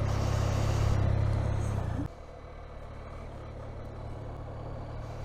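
BMW R 1250 RT's boxer-twin engine running steadily. About two seconds in, the sound drops suddenly to a quieter, steady run.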